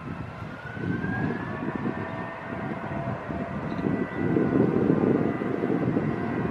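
Airbus A320's twin jet engines at takeoff power during the takeoff roll: a deep rumble that swells about four seconds in, with a whine that rises in pitch over the first two seconds and then holds steady.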